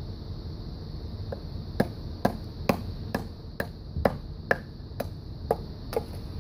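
Splitting fatwood by batoning: a wooden baton strikes the spine of a blade driven into the resinous pine, giving about ten sharp wooden knocks, roughly two a second.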